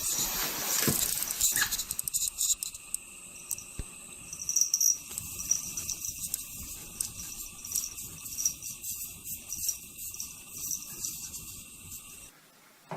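Light metallic jingling and clinking, coming and going in quick little runs, over a faint steady high-pitched tone.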